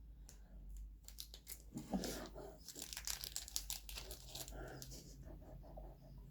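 Faint, irregular crinkling and crackling of a snack wrapper being handled.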